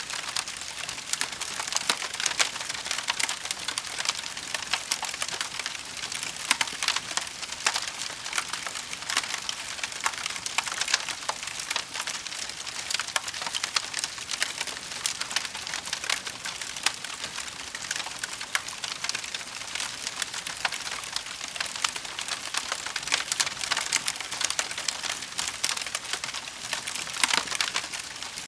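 Fireplace fire crackling: a dense, steady run of small pops and snaps over a soft hiss.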